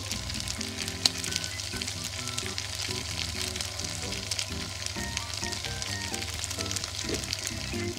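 Bitter gourd and shrimp sizzling as they sauté in oil in a frying pan: a steady crackling hiss with small pops and one sharp pop about a second in. Soft background music plays underneath.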